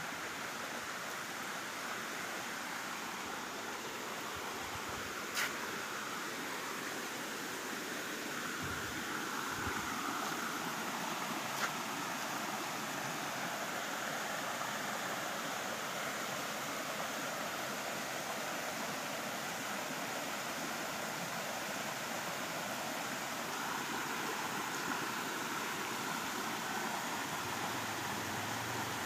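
Small woodland stream running over rocks: a steady rush of water that grows a little louder about nine seconds in. Two brief clicks are heard along the way.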